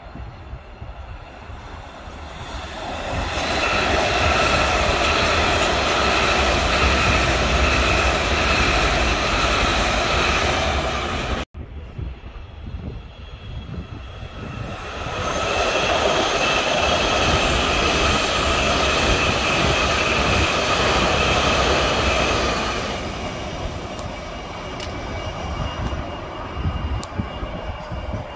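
Washington Metro train passing close by at speed: wheel and track rumble under a steady high whine made of several held tones. About a third of the way in the sound cuts off abruptly, and a second pass swells up a few seconds later, then fades well before the end.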